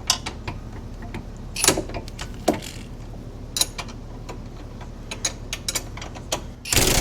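Scattered clicks and knocks of tools on a seized A-arm bolt, then near the end an impact wrench starts hammering at it, a loud, fast rattle. The bolt is heavily over-torqued.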